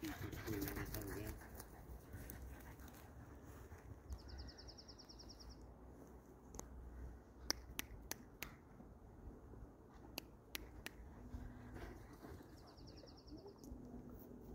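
Quiet outdoor ambience with a low wind rumble. A small bird's buzzy high trill comes twice, each about a second and a half long, and scattered sharp clicks fall in the middle. A short, louder rustling stretch comes right at the start.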